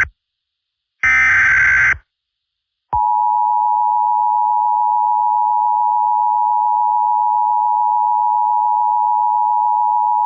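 Emergency Alert System SAME header data burst, a harsh screeching chirp lasting about a second, followed after a brief gap by the EAS attention signal: a steady, loud two-tone beep near 900 Hz starting about three seconds in and held through the rest.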